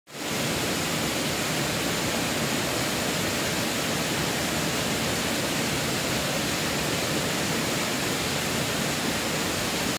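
Steady, even rushing of a waterfall, fading in at the start.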